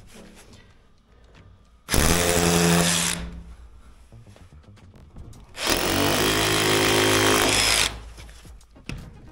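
Handheld electric power tool run in two short bursts, the second longer. Each time the motor starts suddenly and whines steadily; the first winds down with a falling pitch, and the second cuts off.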